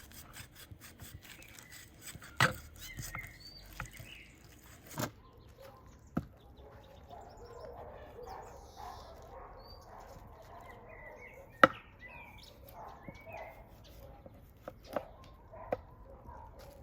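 A knife scraping meat off beef rib bones, dense rasping strokes in the first few seconds, then softer work broken by several sharp knocks, the loudest about two-thirds of the way through.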